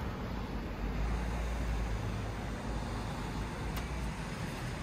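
Steady road traffic noise: cars driving past on a city street, a constant rumble of engines and tyres.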